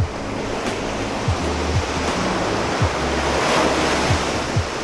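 Ocean surf breaking and washing up the beach, swelling to its loudest about three and a half seconds in, with wind on the microphone, under background music with a soft, steady kick-drum beat.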